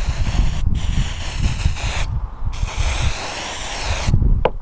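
Aerosol can of activator for two-part miter glue spraying onto a trim joint in three hissing bursts, the last ending about four seconds in, with a low rumble underneath. A short click comes near the end.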